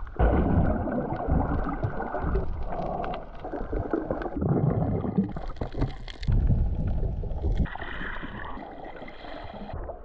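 Muffled rushing of water mixed with wind noise on the microphone, its character changing abruptly every second or two.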